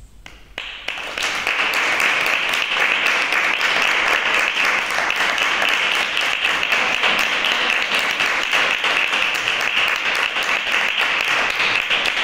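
Audience clapping at a curtain call. The applause builds up within the first second and then holds steady as a dense patter of many hands.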